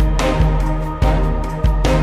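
Background music: a low bass line held under struck notes that come in a steady beat.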